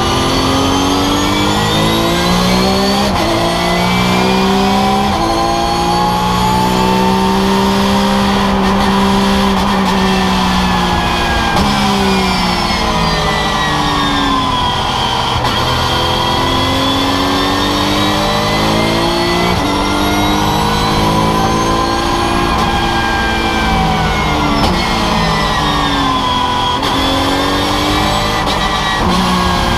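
Porsche 911 GT3 Cup race car's naturally aspirated flat-six engine at full race pace, heard from inside the cockpit. The revs climb in long sweeps through the gears and fall back sharply about halfway through and again near the end, as the car brakes and downshifts for corners.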